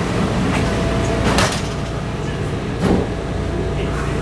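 Bombardier metro car's automatic sliding doors closing, with a knock about a second and a half in and a louder thud about a second and a half later as they shut, over the train's steady hum.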